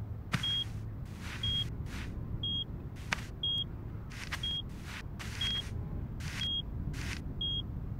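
Mine detector beeping, a short high tone repeating evenly about once a second, with brief rustling noises and a low steady hum underneath.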